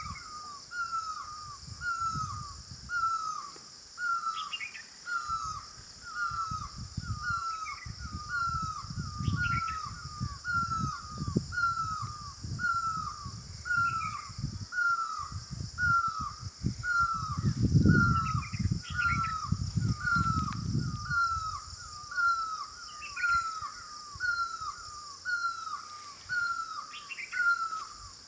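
A bird calling one short, downward-curving note over and over at an even pace, about one and a half calls a second, with a few scattered higher chirps from other birds. Behind it runs a steady high buzz, and a low rumble comes and goes through the middle.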